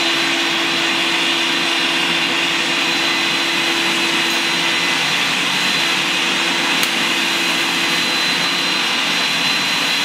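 Cheap countertop blender motor running steadily, with a steady hum and a faint high whine, as it churns fruit and liquid nitrogen.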